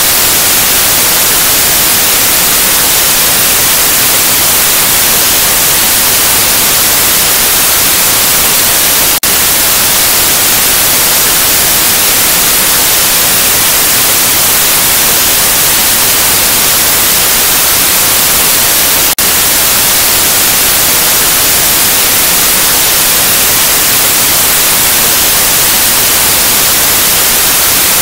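Loud, steady TV static hiss (white noise), cutting out for an instant twice, about a third and two thirds of the way through.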